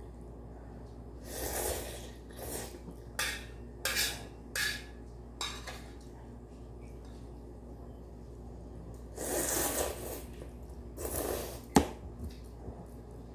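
Eating hot instant ramen: several short slurps of noodles, and a sharp metallic clink of metal chopsticks against the pot near the end, the loudest sound.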